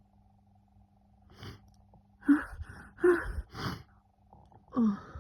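A woman's sharp, voiced gasping breaths as a sneeze builds and sticks: three loud catches of breath in quick succession a little over two seconds in. Near the end comes a further voiced sound whose pitch drops quickly.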